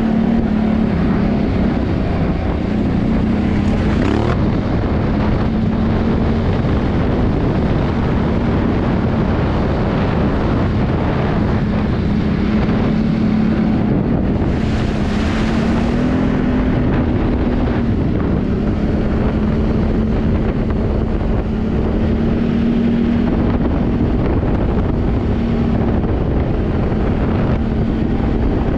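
ATV engine running steadily while riding, its note wavering a little and rising briefly about two-thirds of the way through, under heavy wind noise on the helmet or handlebar action camera's microphone.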